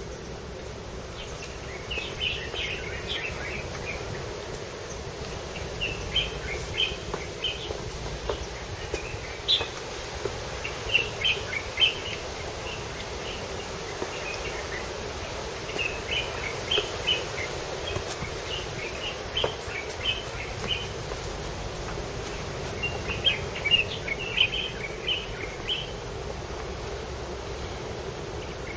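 Birds chirping outdoors in quick clusters of short, sharp chirps every few seconds, over a steady low hum and background noise.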